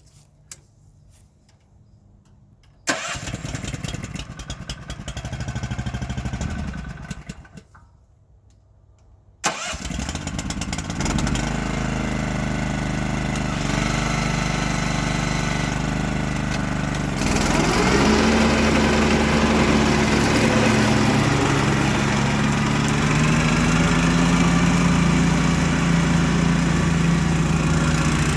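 BCS 770 walk-behind tractor's engine being started. A first run of about four seconds dies away. Started again about ten seconds in, it catches and keeps running, speeding up in steps, louder and higher in pitch from about seventeen seconds in.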